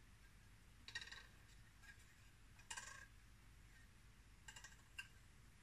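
Near silence, with a few faint metallic clicks and scrapes of a steel feeler gauge sliding between a camshaft lobe and rocker arm of a Lada Niva engine's valve train while the valve clearance is checked.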